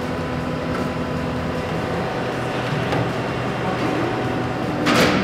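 Skid steer's diesel engine running steadily, with a loud clank about five seconds in.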